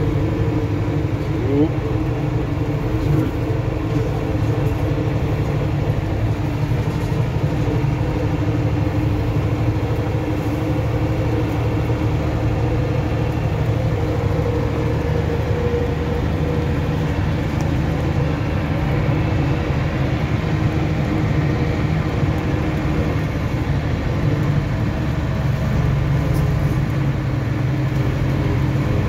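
Mercedes-Benz Unimog truck driving steadily along a sandy track, heard from inside the cab: a constant engine and drivetrain drone with several steady low tones.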